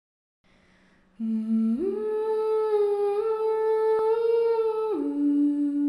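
A voice humming a few slow, sustained notes: a low note about a second in, rising to a long held higher note, then dropping to a lower note near the end.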